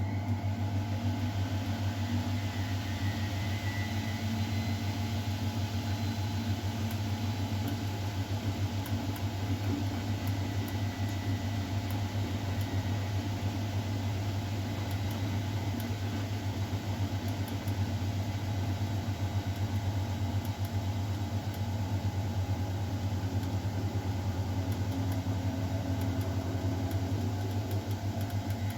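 Miele Novotronic W912 front-loading washing machine running mid-cycle: a steady low hum with faint, scattered high ticks above it.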